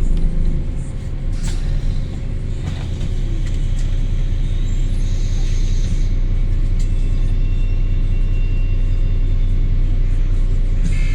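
London bus diesel engine running with a steady low rumble, heard from on board. From about seven seconds in a thin, steady high whine from the turbocharger sits above it.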